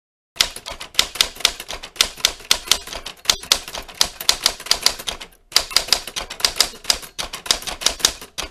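A rapid run of sharp clicks, about six a second, with a short break about five seconds in.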